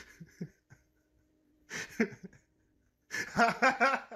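A person laughing: a few short, quiet bursts, then about three seconds in a loud run of half a dozen quick laughs.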